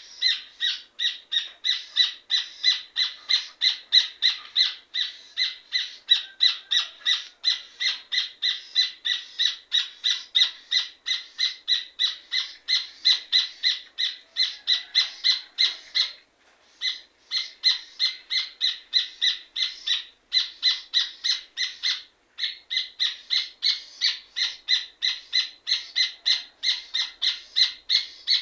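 Rufous hornero (red ovenbird) singing: a long series of loud, rapid repeated notes, about four a second, broken by two short pauses in the second half.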